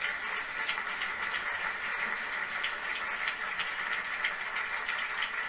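A steady hiss with many faint scattered clicks, played through a television speaker.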